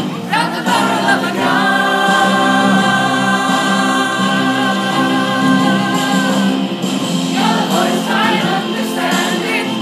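A group of people singing together in unison, unaccompanied, holding a long note for several seconds in the middle before the melody moves on again.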